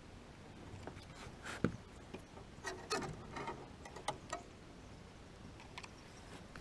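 Faint, irregular clicks and light knocks of fishing tackle being handled in a boat.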